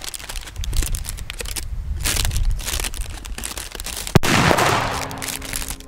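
F3 Xplode Trueno No. 4 firecrackers (4 g cylindrical bangers) going off: a run of sharp cracks and crackling, then the loudest bang about four seconds in, followed by a trailing echo. They are really loud.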